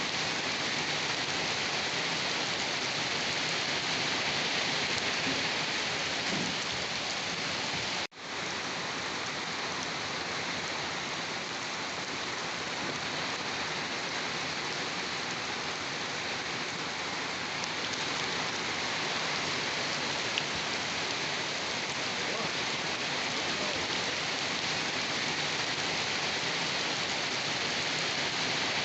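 Steady rain falling, a dense, even hiss of drops on surfaces. About eight seconds in the sound cuts out for an instant and comes straight back.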